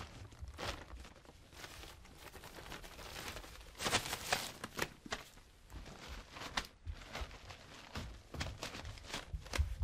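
Plastic bags and disposable overshoes crinkling and rustling as the overshoes are taken out of a case and pulled on over shoes, in irregular bursts with a louder run of crackling about four seconds in.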